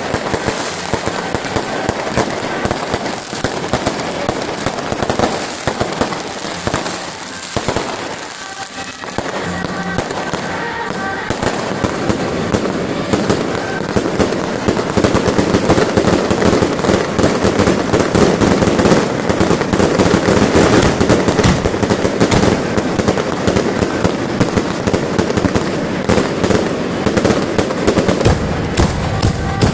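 Fireworks and firecrackers going off in continuous rapid crackling and popping. The crackle grows louder and denser about halfway through.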